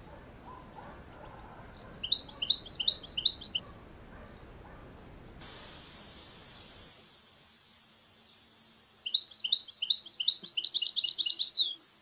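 European goldfinch song: two short bursts of quick, repeated twittering notes, the second running into a fast trill near the end. A steady high hiss sets in about halfway through.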